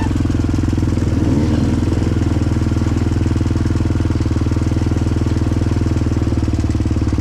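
Dirt bike engine running steadily at low revs, an even putter that holds the same pitch with only a slight wobble a second or so in.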